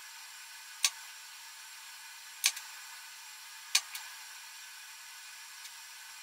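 Three sharp clicks, about a second and a half apart, as fingers handle and bend the carved wax petals of a candle. A steady hiss runs underneath.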